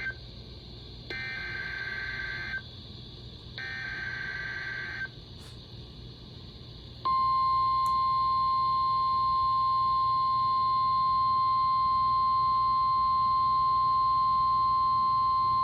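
Emergency Alert System SAME header: bursts of warbling two-pitch data tones, the tail of one and then two more, ending about 5 s in. About 7 s in comes a steady single-pitch NOAA Weather Radio warning alarm tone (1050 Hz) lasting about nine seconds, the signal that a warning message follows. Faint radio hiss and hum lie underneath.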